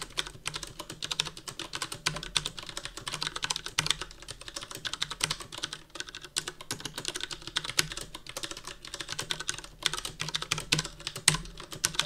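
Fast, continuous typing on a Kinesis Freestyle Edge RGB split mechanical keyboard with MX Brown tactile switches: a dense, uneven run of key clacks.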